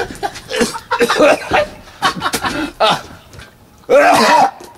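A man coughing and gagging in short, harsh fits as dry ground cinnamon chokes him, with a longer, louder strained retch about four seconds in, the heaving that comes before vomiting.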